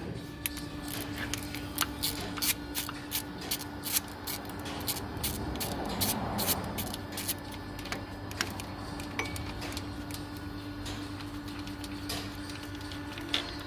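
Hand tools clicking and tapping on engine timing parts, irregular sharp clicks thickest in the first eight seconds and sparser after, over a steady hum.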